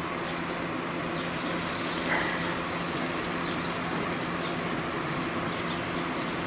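Apple chicken sausages sizzling on a grill, a steady hiss with faint tiny pops, over a low steady hum. A brief high chirp about two seconds in.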